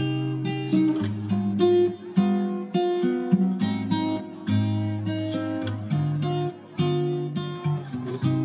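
Background music: a guitar strummed and picked in a steady rhythm.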